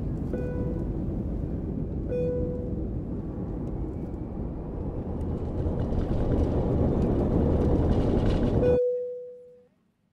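Jet aircraft engine noise building up with a rising whine, broken by a few short beeping tones. It cuts off abruptly near the end, leaving one beep fading out.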